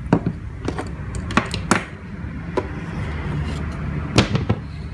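Irregular sharp clicks and knocks of a plastic AC charger adapter and its cable being handled on a desk and brought to a jump starter's charging port.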